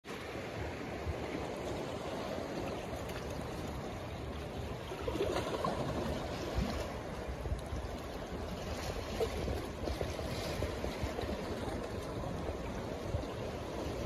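Calm sea water lapping and splashing gently against the boulders of a rock breakwater: a steady wash with small, irregular splashes.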